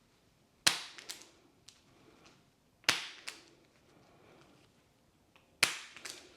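Three sharp slap-like strikes about two and a half seconds apart, each followed quickly by one or two lighter taps.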